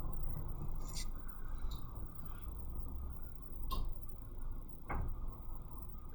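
A few light clicks and taps, four spread over several seconds, over a steady low background hum.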